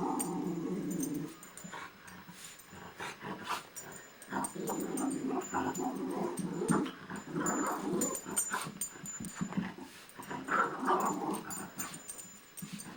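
Two dogs play-fighting, growling in rough stretches, with a higher yelp about ten seconds in.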